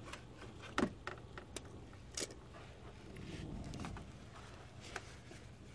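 Quiet handling noise under a car: a few light clicks and taps, the sharpest just under a second in, then a soft rubbing about three seconds in as a spin-on oil filter is unscrewed by hand and oil filter pliers are handled.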